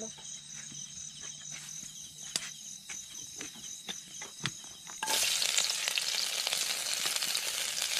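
Chopped garlic dropped into hot oil in a wok, sizzling loudly from about five seconds in. Before that, a steady high insect trill and a few sharp clicks.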